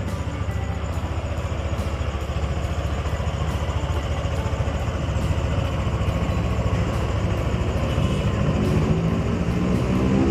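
Yamaha NMAX scooter's single-cylinder engine running steadily with a rough, harsh engine noise, the 'mesin kasar' roughness that appeared when it was started in the morning.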